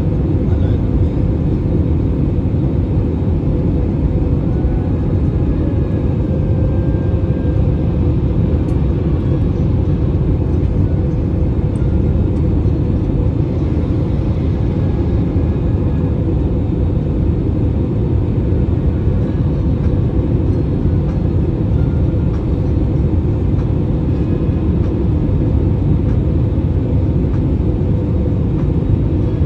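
Steady cabin noise of an Airbus A320 descending on approach: a loud, even rumble of the engine and rushing air heard from a seat beside the wing engine, with a faint steady hum over it.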